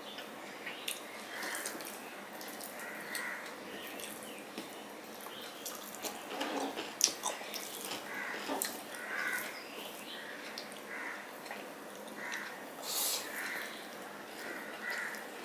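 Cooked rice being mixed and kneaded by hand on a steel plate: soft, wet squishing with scattered light clicks and taps.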